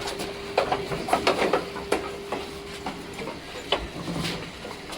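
Scattered knocks and clatter as rams are handled in their pens, over a steady hum.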